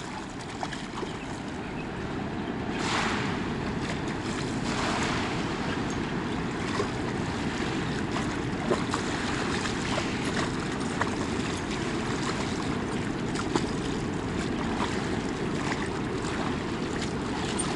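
Steady rush of river water with wind on the microphone, and splashing from a hooked lake trout thrashing at the surface, loudest about three and five seconds in.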